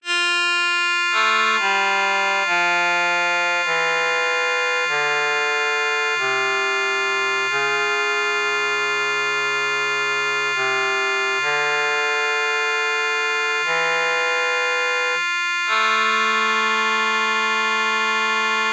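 Instrumental music with no singing: sustained chords that change about once a second, ending on one long held chord for the last few seconds.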